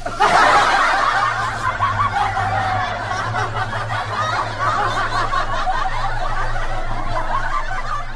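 Laughter that starts abruptly and goes on without a break for several seconds, fading near the end.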